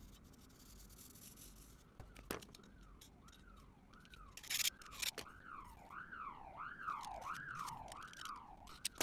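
A siren wailing up and down in pitch, about one and a half sweeps a second, starting about two and a half seconds in and getting louder. A few sharp clicks and knocks fall on top of it, the loudest just before five seconds in.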